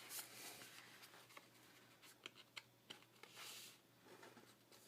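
Faint rustling with a few light ticks and a soft swish of paper card stock being handled and folded shut.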